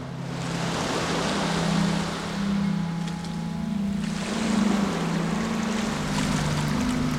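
Ambient music: sustained low notes that shift pitch every second or so, over a steady rushing wash of noise like surf.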